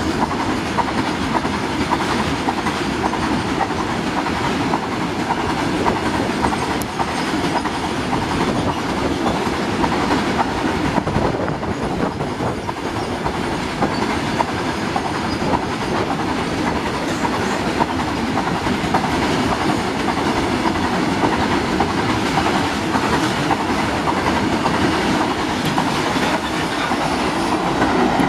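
A long rake of BTPN petroleum tank wagons on a freight train rolling past: steel wheels clattering steadily on the rails.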